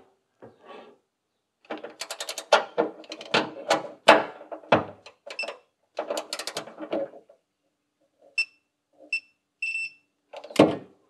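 Ratchet wrench clicking in two quick runs as a bolt is turned, followed by three short high electronic beeps from a digital torque wrench signalling the set torque.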